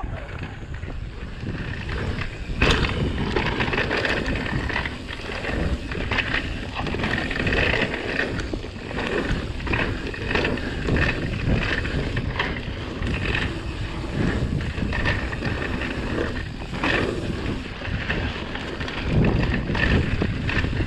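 Mountain bike riding fast down dirt singletrack: wind buffeting the microphone over tyre noise on the dirt, with the bike rattling and knocking over bumps.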